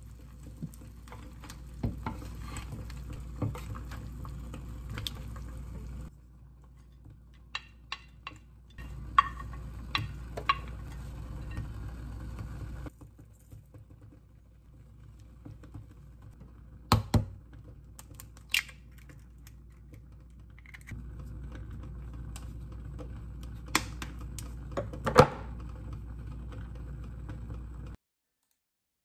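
Kitchen montage of a ceramic pot of soft tofu stew simmering with a steady bubbling hiss, broken by sharp knocks and clinks of a wooden spoon and utensils against the pot as ingredients go in and are stirred. The sound cuts off abruptly near the end.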